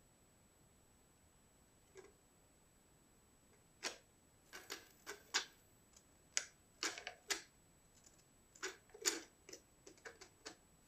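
Irregular small clicks and taps from mice moving in and around a soup-can live-catch trap: tin can and its snap-on trap door. The sounds are faint, with a single tap about two seconds in, then frequent uneven clicks from about four seconds on.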